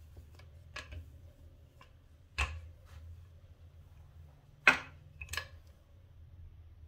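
Wooden handled rolling pin rolling out chapati dough on a granite countertop: a few sharp knocks and clicks, the loudest about two and a half and nearly five seconds in, over a low steady hum.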